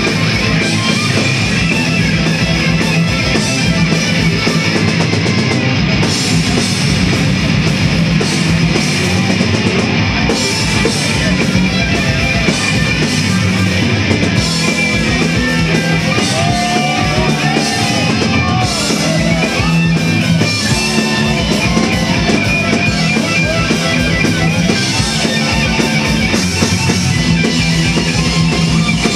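Loud rock music with electric guitar and drum kit, playing steadily without a break.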